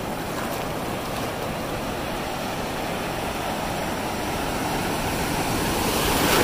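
Ocean surf washing on the beach with wind rumbling on the microphone, swelling louder near the end as a wave comes in.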